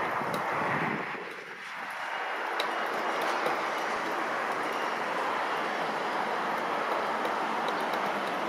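Distant jet roar of an Embraer regional jet's turbofan engines on approach: a steady rushing noise that dips and sweeps briefly about a second in.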